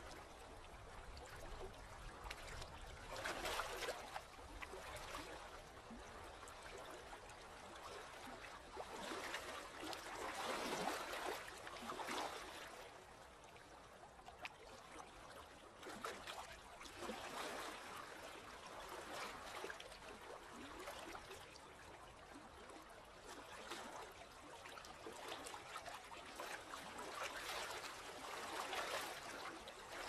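Calm sea water lapping softly, swelling in gentle surges every few seconds.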